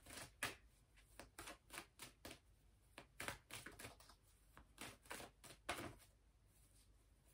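Tarot cards being shuffled and handled by hand: faint, irregular soft clicks and rustles, two or three a second.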